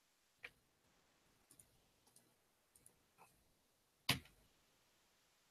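Computer mouse clicking over near silence: one click near the start, several faint clicks through the middle, and a louder click about four seconds in.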